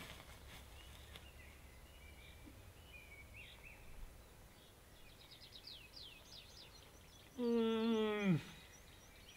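Faint outdoor ambience with small birds chirping in short repeated notes. About two seconds before the end comes one louder, wavering call of about a second that drops sharply in pitch as it ends.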